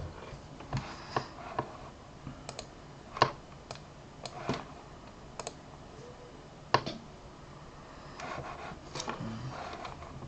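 Irregular light taps and clicks, a few sharper than the rest, over a low room hiss.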